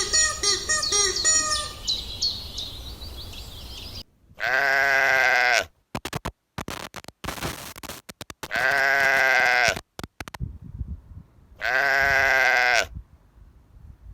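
Sheep bleating: three long wavering baa calls, each about a second long and a few seconds apart. Before them, a bird chirps rapidly for about the first two seconds.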